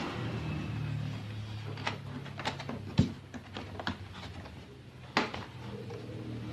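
Plastic latches of a laptop's bottom cover clicking as it is pried open, a handful of sharp clicks spread over several seconds, the loudest about three seconds in, over a low steady hum.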